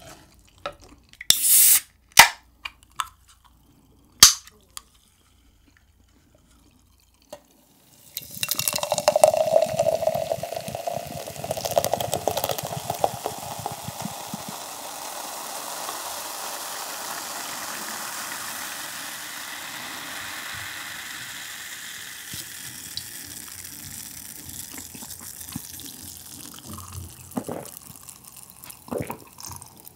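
Coca-Cola poured from a can into a glass, splashing into the glass and then fizzing steadily for several seconds as the carbonation settles. A few sharp clicks and a short hiss come first, and a few short sounds of drinking come near the end.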